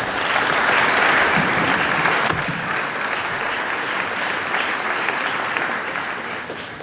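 Audience applauding in a large hall, starting at full strength and slowly dying away near the end.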